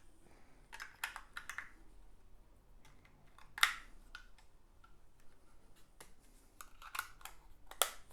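Scattered clicks, taps and light rustles of hands handling plastic parts and packaging, in small clusters, the loudest a single sharp click about three and a half seconds in.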